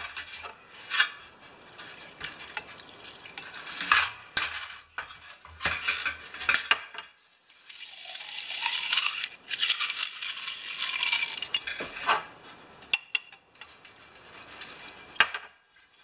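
Lawnmower recoil (rewind) starter being worked in a metal pan of solvent to clean out a slow-to-retract spring: scattered clinks and knocks of the starter housing against the pan, with a spell of wet hissing in the middle.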